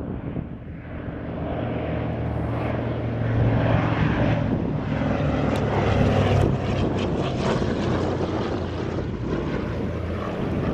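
Douglas DC-3's twin radial piston engines and propellers running in a low flypast. The sound grows louder as the airliner approaches, is loudest around the middle as it passes, then eases off as it climbs away.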